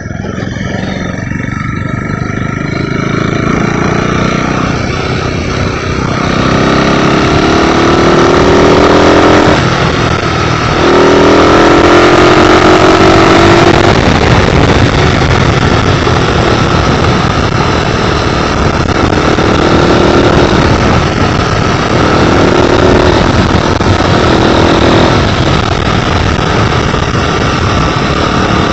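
Custom chopper motorcycle engine running under way, its pitch climbing as it accelerates and breaking off at gear changes, about a third of the way in and again later. A heavy steady rush of riding wind on the microphone lies under it.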